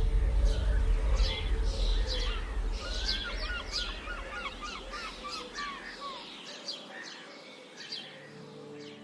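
Several wild birds chirping and singing, many short high calls with one bird giving a quick run of about ten repeated notes near the middle. A low rumble under them fades away over the first six seconds or so.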